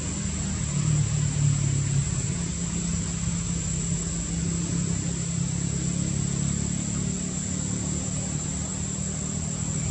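A motor engine running steadily with a low hum, a little louder between one and two seconds in, and a constant thin high whine above it.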